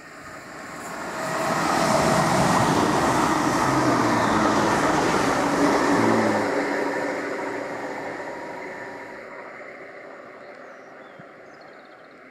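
London Midland Class 350 Desiro electric multiple unit passing at speed: its wheels and motors grow louder as it approaches, stay at full level for a few seconds as it goes by, then fade steadily as it pulls away.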